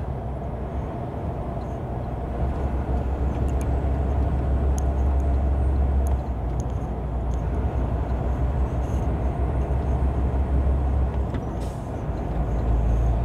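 Steady low engine and road rumble heard from inside a vehicle cab cruising on a motorway, with tyre noise and a few faint rattles.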